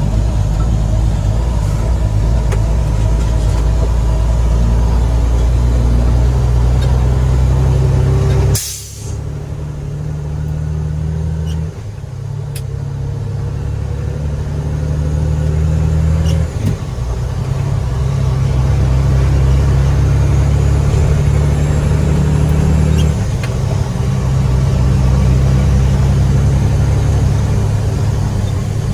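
Heavy diesel engine of an International 9300 truck running, with a short sharp blast of air hiss about nine seconds in. The engine note steps down and picks back up several times afterwards.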